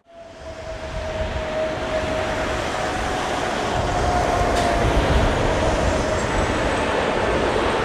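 Airliner engines running, with a steady whine over a broad rumble, growing louder over the first few seconds.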